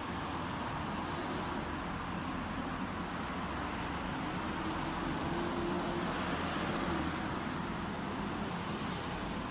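Steady outdoor rush of wind mixed with road traffic noise, a vehicle going by in the middle.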